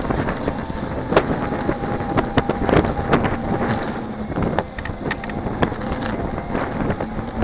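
Wind buffeting the microphone of a camera riding on a moving electric unicycle, a steady rumble broken by scattered sharp clicks and knocks.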